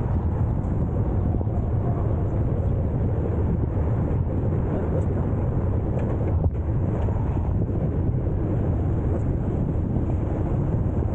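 Steady low rumble of wind buffeting the microphone of a camera riding along on a moving electric bike, with one brief knock about six and a half seconds in.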